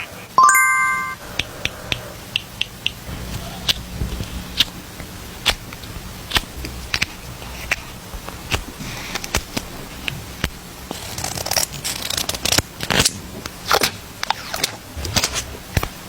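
Clear nano tape being worked by hand into a squishy: many quick, sharp sticky crackles and clicks as it is handled and pressed. A short bright chime sounds about half a second in.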